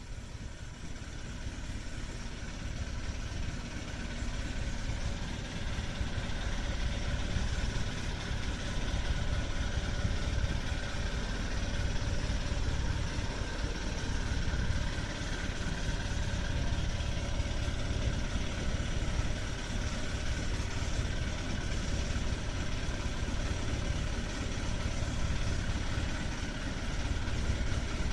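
Fishing boat's engine running at idle, a steady low rumble that fades in over the first few seconds.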